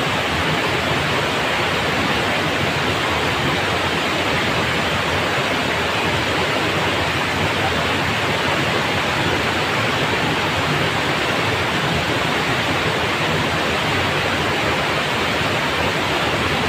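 Water spilling over a low weir into a shallow river, a steady rushing noise.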